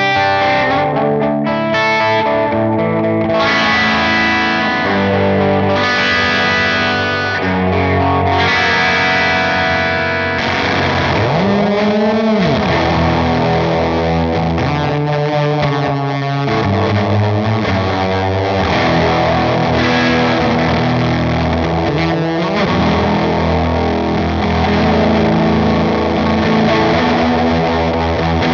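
Yamaha Pacifica electric guitar played through several Gokko effects pedals combined, giving a distorted tone. The notes are held and changing, with a string bend rising and falling about twelve seconds in.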